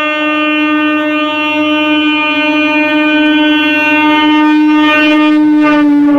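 Indian Railways EMU local train's horn sounding one long, steady blast as the train approaches, slowly growing louder.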